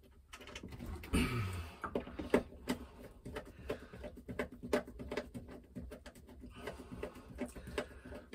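Small irregular clicks and knocks from a screwdriver working the cable terminal screws of a Victron SmartSolar MPPT charge controller. About a second in there is a short, louder sound that falls in pitch.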